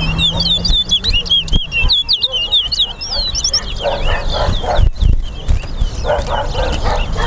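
Chestnut-bellied seed finch (towa-towa) singing a fast, unbroken run of rising and falling whistled notes. A dog barks about four seconds in and again about six seconds in.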